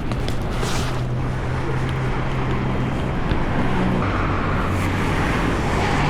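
A vehicle engine running steadily under a haze of wind or road noise. Its hum drops in pitch about four seconds in and rises again near the end.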